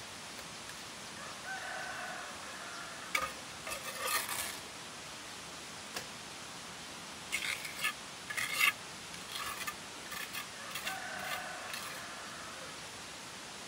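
Light clattering and scraping in two short bunches over a steady hiss, with a faint held pitched tone twice.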